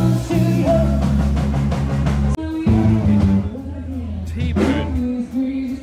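Rock music with drums and singing, briefly cutting out about two and a half seconds in.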